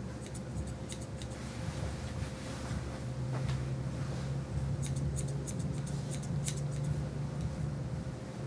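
Grooming shears snipping through a puppy's fur in quick runs of snips, busiest about five to seven seconds in, over a low steady hum.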